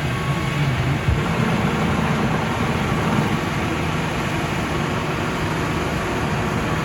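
Farm machinery's engine running steadily, a constant low hum under a broad hiss.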